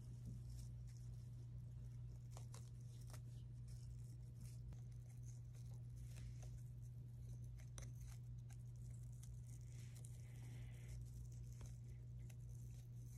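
Quiet handling sounds of a popsicle-stick and pipe-cleaner craft being assembled: scattered faint clicks and rustles over a steady low hum.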